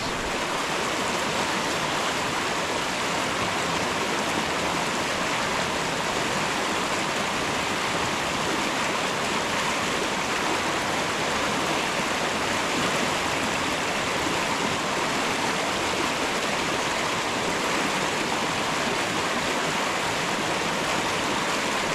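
Creek water rushing steadily into a pool, a constant, even splashing rush of moving water.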